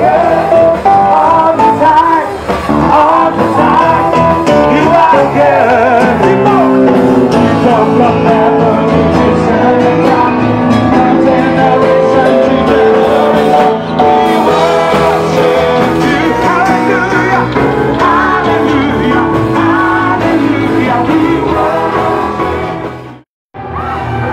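Loud music: a song with singing and guitar. It cuts out abruptly for a moment near the end, then starts again.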